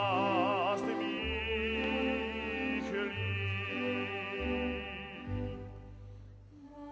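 Operatic singing with orchestra in a slow operetta waltz duet: one voice glides up and holds a long note with wide vibrato over sustained low strings, then fades away; a lower voice comes in right at the end.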